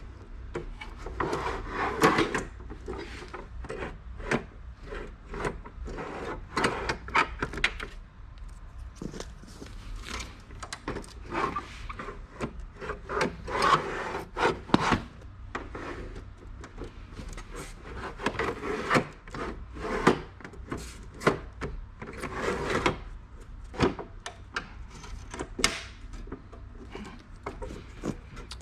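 Computer hardware being handled and fitted by hand: irregular knocks, clicks and short rubbing scrapes, with no steady rhythm.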